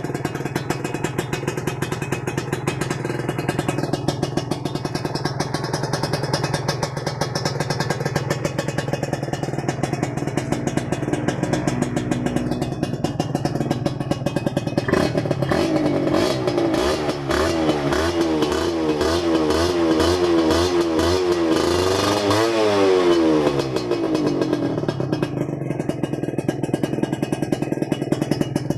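Kawasaki Serpico 150 two-stroke single idling through an aftermarket LMN expansion-chamber exhaust. About halfway through it is blipped repeatedly in quick revs, the pitch climbing higher to a peak near the end of the revving, then it drops back to idle.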